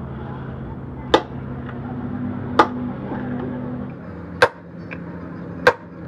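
Hand hammer striking the steel parts of a truck fifth wheel coupling plate: four sharp single blows about a second and a half apart, over a steady low hum.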